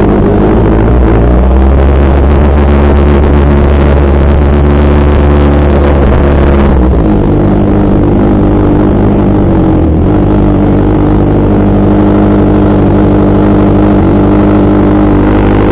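Kawasaki ZX6R (636) inline-four engine running loud at fairly steady revs, its note changing once about halfway through.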